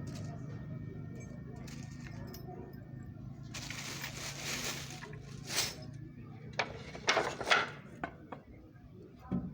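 A steady low hum, a burst of hiss a few seconds in, then a run of sharp knocks and clatters in the second half, the loudest about three-quarters of the way through.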